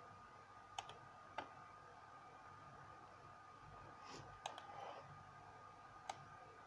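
A few faint, sharp computer mouse clicks spread over several seconds, over near-silent room tone with a faint steady high tone.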